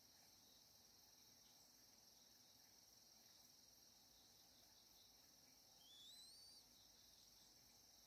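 Faint steady high-pitched insect chorus, cricket-like, with one short rising, wavering whistled bird call about six seconds in.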